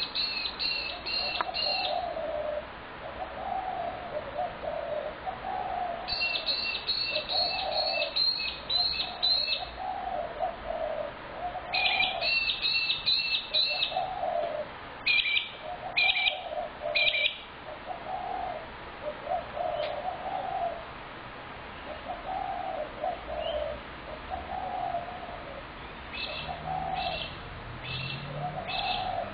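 Spotted doves cooing over and over, one phrase after another with hardly a pause. Several bursts of rapid high chirps from another bird cut in over the cooing.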